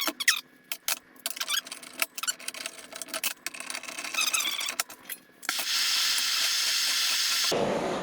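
Metal clinking and tapping as a wheel hub and its bearing are worked with tools, a quick run of sharp clicks and rattles. About five and a half seconds in, a steady loud hiss begins and lasts about two seconds, then gives way to a lower rushing sound.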